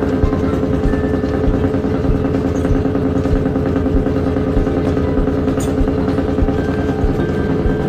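Shrimp trawler's engine running steadily, a constant drone with a low rumble underneath.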